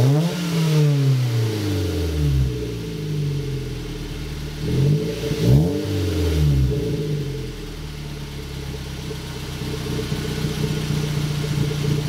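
Mazda 3 2.0-litre four-cylinder heard at the tailpipe of its Borla cat-back exhaust, with the car standing still. The revs fall back from a blip right at the start, a second quick rev about five seconds in rises and falls away again, and the engine then settles into a steady idle.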